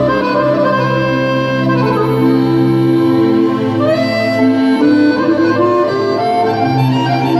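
Guerrini chromatic button accordion playing a melody over steady held bass notes.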